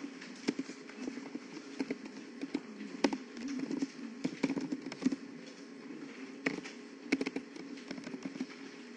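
Computer keyboard keys clicking in irregular bursts of typing, over a steady low background hum.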